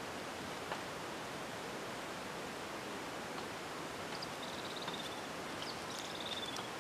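Steady, even open-air hiss with no distinct source, broken in the second half by two short, rapid, high trills from a small bird.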